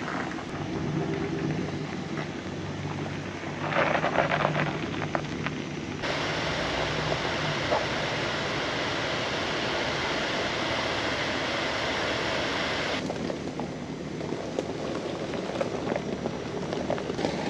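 A four-wheel-drive tow vehicle's engine running as it pulls a boat trailer up a ramp of loose rocks, with a steady hum. About six seconds in a loud, even rushing noise starts and runs for about seven seconds before cutting off abruptly.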